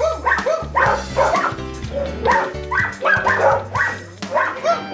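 Dogs in a shelter kennel room barking and yipping in quick, overlapping barks, several a second, over steady background music.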